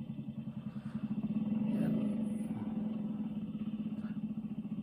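Small single-cylinder motorcycle engine running in a fast, even putter as the bike is ridden, swelling about a second in. It is heard as the playback of a riding video through a TV speaker.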